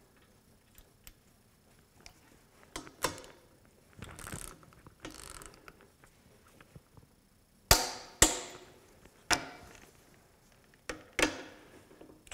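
A click-type torque wrench ratcheting on a bolt in a bench test fixture, followed by several sharp metallic clicks and knocks, the loudest about eight seconds in.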